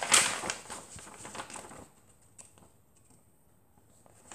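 A large sheet of paper rustling and crackling as it is handled and folded by hand for about the first two seconds. Near silence follows, with a few faint ticks.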